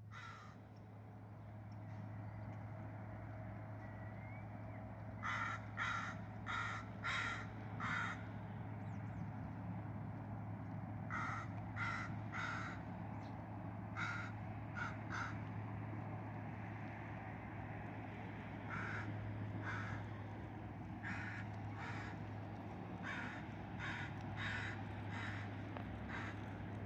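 Crow cawing in runs of two to five quick caws, repeated every few seconds, over a steady low background hum.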